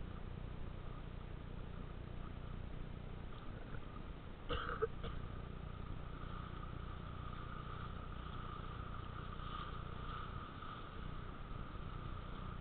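Sea Ray 200SR motorboat running steadily while towing, heard from the towed banana behind it, with water and wind noise. There is a short, louder bump about four and a half seconds in.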